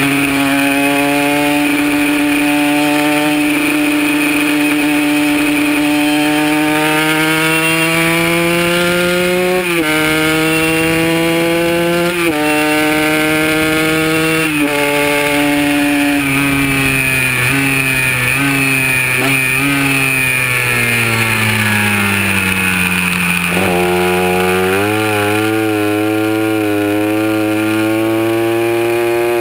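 Kawasaki KR150's two-stroke single-cylinder engine at full throttle on a race track. The pitch climbs steadily through each gear and drops sharply at quick upshifts about 10, 12 and 15 seconds in. It then falls away as the bike slows, with a few short blips on the downshifts, and climbs again under acceleration near the end.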